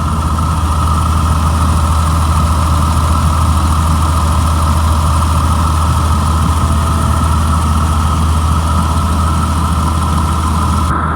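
Caterpillar 3126 inline-six diesel in a school bus idling steadily, a low even engine note with a steady whine above it. It is running smoothly and sounds good.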